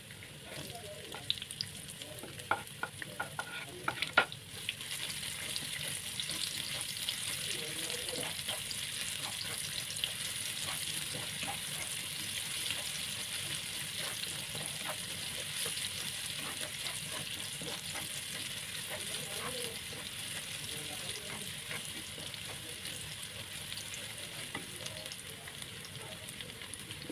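Garlic and shallots sizzling in hot cooking oil in a pan, with a few sharp knocks in the first four seconds. The sizzle swells about five seconds in and then runs steadily.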